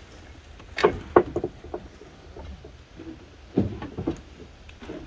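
A run of knocks and thuds, a cluster of several about a second in and a few more later, over a low steady rumble.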